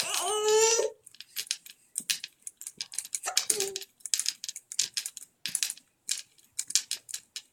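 Jolly Jumper baby bouncer clicking and jingling as the baby bounces, its metal spring and door clamp giving quick, irregular ticks, two to four a second. A short voice sound opens it and another comes about three and a half seconds in.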